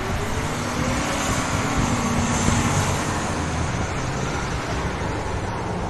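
Concrete mixer truck driving past on the street, its engine and road noise building to a peak about two to three seconds in, then easing off as it moves away.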